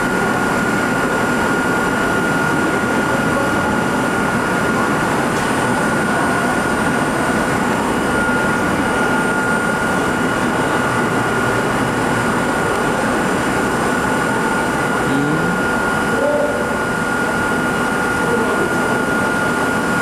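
Hakone Tozan Railway electric railcar standing at the platform with its onboard equipment running: a steady hum with a constant high-pitched whine over it.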